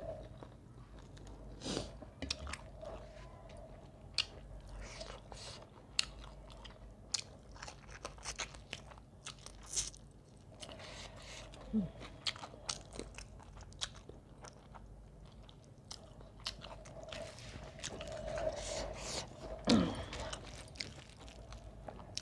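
Close-miked chewing and eating by hand: many small wet mouth clicks and crunches, with a few louder bites and mouth sounds.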